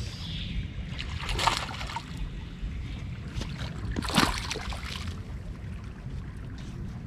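Wind buffeting the microphone, with two splashes as a hooked largemouth bass is drawn to the shoreline and lifted from the water, the louder one a little after four seconds in.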